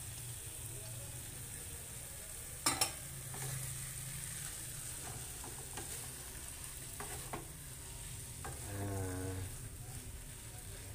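Wooden spatula stirring and scraping raw chicken pieces through curry spice paste in a nonstick wok, with a quiet frying sizzle. Scattered knocks of the spatula against the pan, the sharpest a quick double knock a little under three seconds in.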